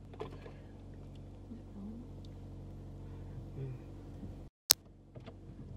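Car engine idling, a steady low hum heard inside the cabin, with a faint short vocal sound from a toddler about two seconds in. Near the end the sound drops out for a moment and a single sharp click follows.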